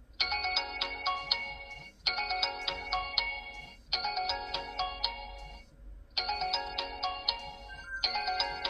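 Phone ringtone playing: a short chiming melody repeating about every two seconds.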